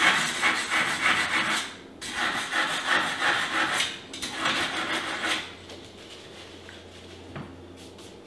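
A kitchen knife being sharpened in three long strokes, each about one and a half to two seconds, the blade scraped through a sharpener; the strokes stop about five and a half seconds in.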